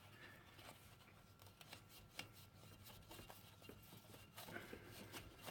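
Near silence with faint rubbing and a few light clicks: synthetic winch rope being wiggled by hand to work its knot loose from the winch drum.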